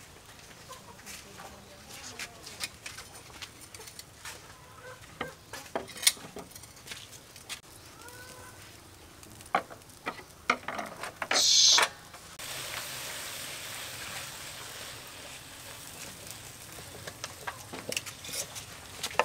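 Scattered knocks and clinks of utensils on a wok, then, after a short loud hiss about eleven seconds in, a steady sizzle as a paste of lemongrass and prahok cooks in the wok and is stirred with a wooden spatula. Chickens cluck faintly in the background.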